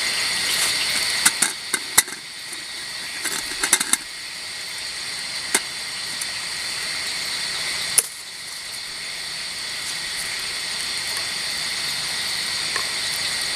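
Steady high-pitched insect chorus with several tones held at once, with scattered sharp clicks and knocks over it. The clicks come in a cluster in the first few seconds, then singly, the loudest about eight seconds in.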